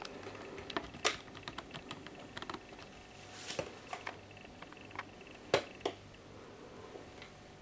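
Texet B200 phone's keys being pressed: irregular, sharp little clicks, a dozen or so, the loudest about a second in and about five and a half seconds in.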